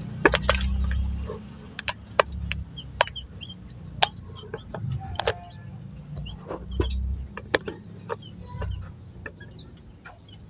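Aviary birds calling, with clucking and short high chirps, among a run of sharp taps and clicks.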